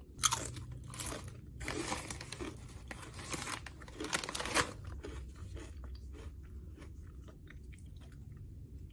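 Close-up eating sounds: several loud, crisp crunching bites over the first few seconds, then softer chewing and mouth sounds.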